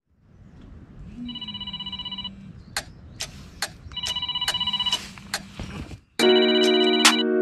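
Smartphone alarm going off: two bursts of rapid high beeping with scattered clicks, then, about six seconds in, a louder melodic alarm ringtone starts.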